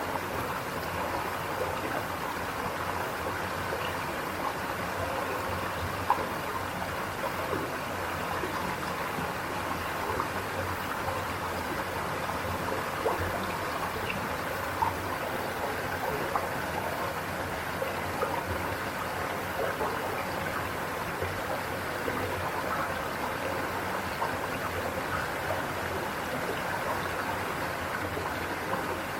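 Mountain valley stream running steadily over rocks, a continuous rush with small splashes and droplet ticks scattered through it.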